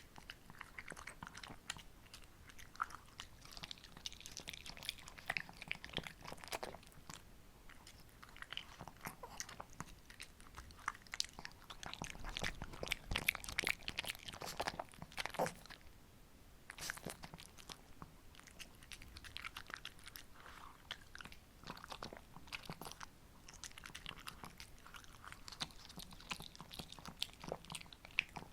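Shih tzu chewing and crunching on a homemade treat, with irregular crisp bites and crunches, busiest about halfway through.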